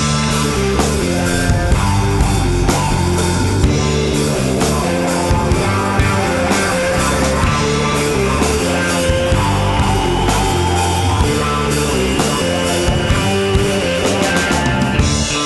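Loud background rock music with electric guitar and a steady drum beat.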